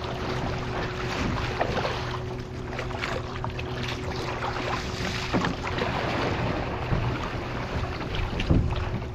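Water splashing from kayak paddle strokes and rushing along the hull, with wind on the microphone and a steady low hum underneath.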